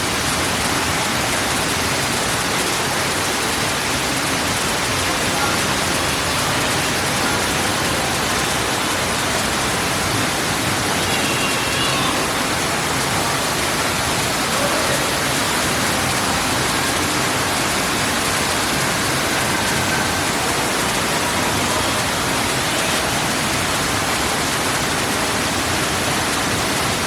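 Indoor artificial waterfall: water falling and rushing into a pool in a steady, even hiss.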